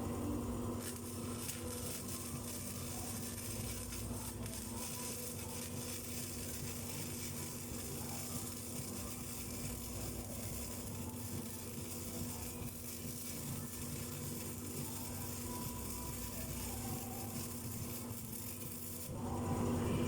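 Welding arc crackling steadily as a butt weld is run on 2.5 mm sheet steel, starting about a second in and stopping about nineteen seconds in, over a steady low hum. A louder, lower noise takes over near the end.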